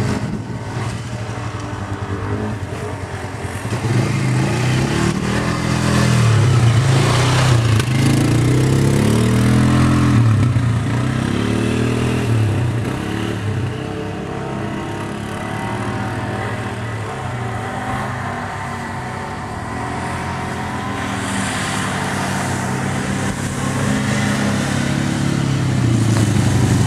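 ATV engine running, its pitch rising and falling repeatedly as the throttle is worked, then holding steadier in the second half.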